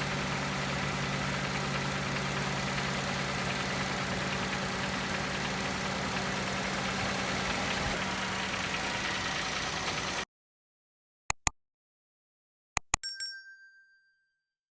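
Car engine idling steadily, stopping abruptly about ten seconds in. Then two pairs of sharp clicks follow, the second pair trailing a short ringing chime.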